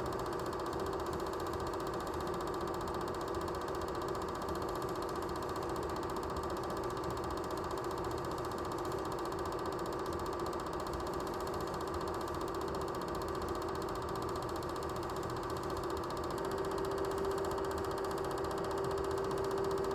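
Steady mechanical whirring with a constant hum, which gets a little louder and clearer about three-quarters of the way through.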